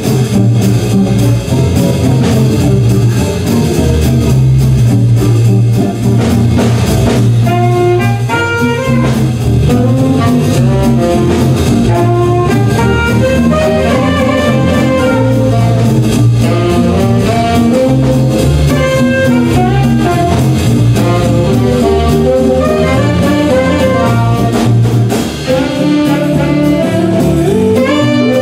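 Live jazz band playing: archtop electric guitar, drum kit and saxophones over bass and keyboard. A melody of clear, separate notes comes in about seven seconds in and carries on over the band.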